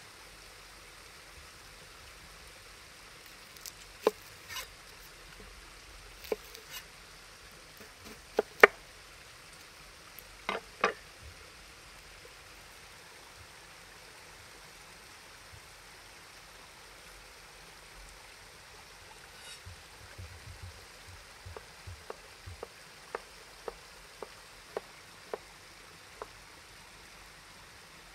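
Food-preparation knocks and clicks of utensils on wood and cookware: a few sharp knocks in pairs in the first ten seconds or so, then a run of lighter taps about two a second, all over the steady rush of running water.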